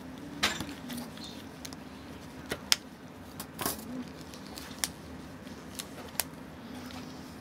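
Scattered light metallic clicks and taps of small watchmaker's tools being handled, about seven in all, the sharpest a little before three seconds in, over a faint steady hum.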